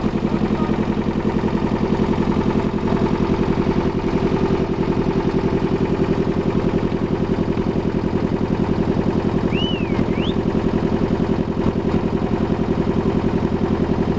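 Inboard engine of a wooden motor ferry boat running steadily under way, a loud, fast, even chugging. Two short high gliding notes sound about ten seconds in.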